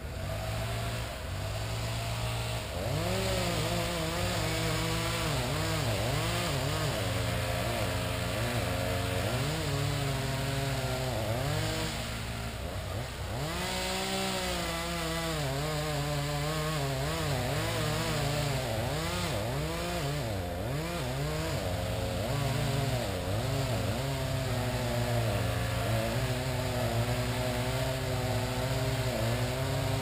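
Power-equipment engine running on a tree-removal job. Its pitch swings up and down every second or so over a steady low drone.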